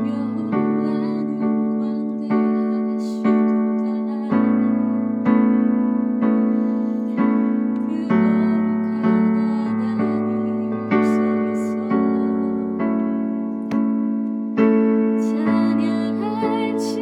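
Electric piano playing a slow worship hymn in full sustained chords, re-struck about once a second.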